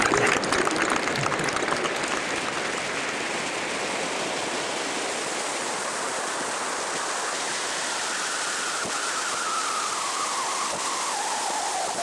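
Steady rushing noise aboard a moving ferry, the blend of wind and water passing the boat, with a faint tone sliding downward in pitch over the last few seconds.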